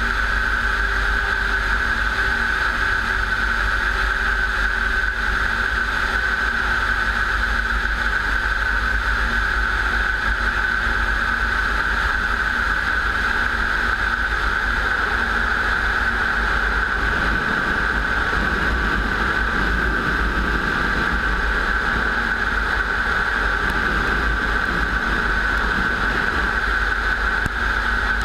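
Propeller aircraft engine noise at an airfield: a steady drone with a constant high whine over a low rumble, and a broad swell of engine sound that builds about two-thirds through and eases off near the end.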